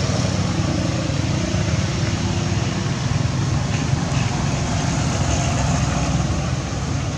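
An engine running steadily: a low drone with a hiss above it.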